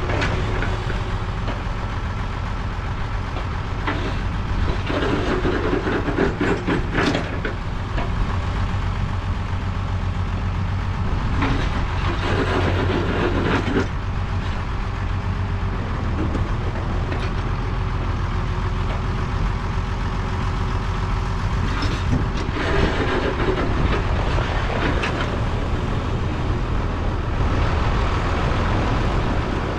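International Harvester 986 tractor's diesel engine running steadily as the tractors creep forward, with a few louder stretches of clatter. The running 986 is pushing a second 986 that would not start in the cold.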